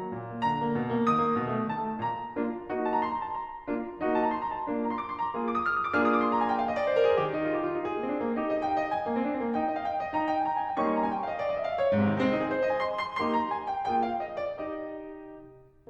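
Background piano music: a stream of struck notes, dying away near the end.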